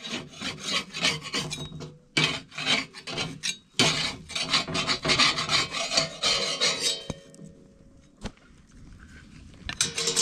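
Rapid, rough scraping strokes, several a second, that stop about seven seconds in, followed by a few faint knocks.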